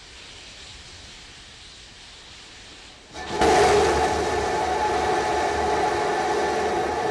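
Rocket engine noise from a Starship prototype's three Raptor engines. A faint steady hiss comes first, then about three seconds in the loud engine rumble cuts in suddenly and holds steady, with droning tones over it.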